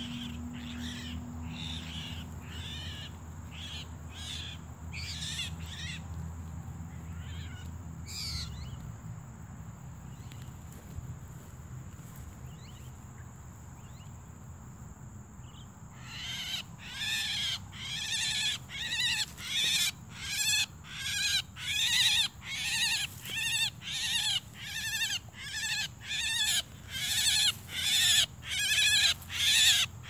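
Javan myna (jalak kebo) calling over and over, about two calls a second. The calls are fainter for the first several seconds, stop for a while, then come back loud from about halfway through and keep getting louder.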